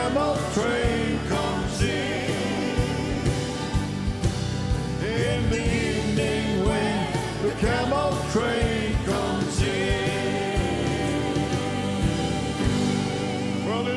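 Live gospel song: singers with wavering, vibrato-laden voices over grand piano and a steady drum beat.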